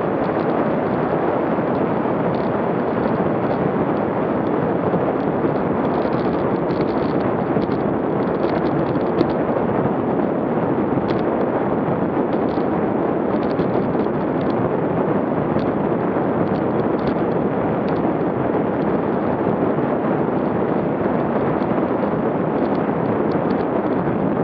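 Steady wind rush buffeting the microphone of an action camera on a bicycle riding at about 25 mph.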